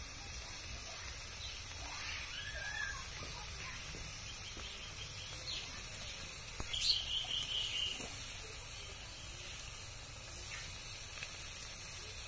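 Goat offal sizzling softly in an iron wok, a steady hiss, with birds chirping now and then and a louder bird call about seven seconds in.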